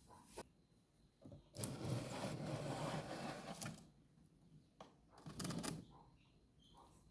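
Clattering handling noises: a few sharp clicks, a rattle lasting about two seconds, then a shorter rattle a little past the middle.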